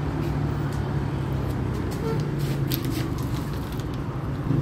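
Steady low hum of an idling motor vehicle engine, unchanging in pitch, with a few light clicks.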